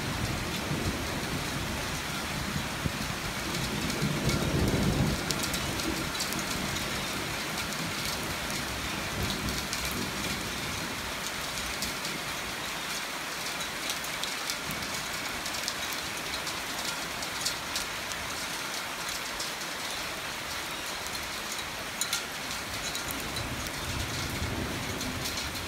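Heavy rain falling steadily on a garden and a tiled balcony, with scattered sharp drips close by. A low rumble of thunder swells about four seconds in.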